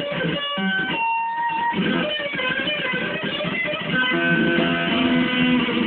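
Electric guitar played through an amplifier, with notes picked and left to ring into one another. It gets a little louder from about four seconds in.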